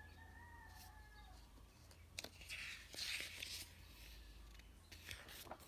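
Near silence: faint room hum, with a faint steady tone in the first second, a few light clicks and a soft rustle about three seconds in.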